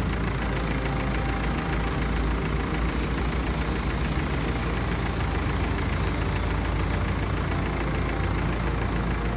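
Heavy log truck's diesel engine running steadily, with a constant low rumble.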